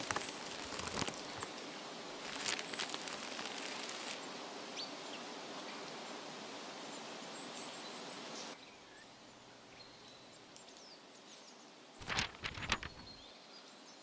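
Nature ambience: a steady rustle like wind through leaves, with faint short bird chirps. The rustle drops away about eight and a half seconds in, and a cluster of sharp crackling clicks comes near the end.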